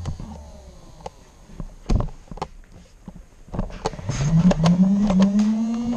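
Motorized Nerf blaster's electric flywheel motors winding down at the start, then revving up with a rising whine about three and a half seconds in and holding at speed. Sharp clicks and knocks sound along the way.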